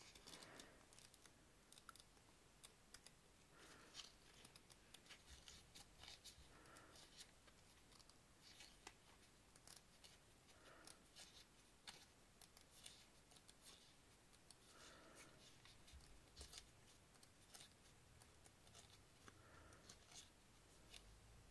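Faint paper handling: a small pad of paper sticker sheets being peeled apart and leafed through, with light ticks and short soft rustles every few seconds.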